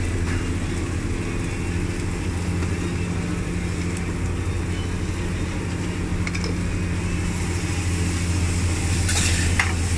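A steady, low mechanical hum with a deep drone, with a few light clinks near the end.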